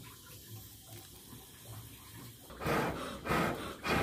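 Three strong puffs of air blown through a blowpipe into a wood fire, starting a little past halfway, each a rush of breath about half a second long.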